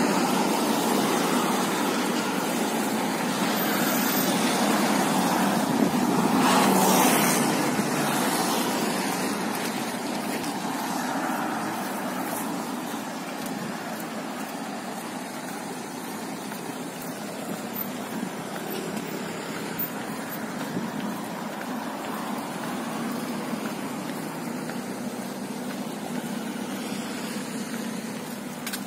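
City street traffic noise: cars passing, with one louder swell about seven seconds in that slowly fades.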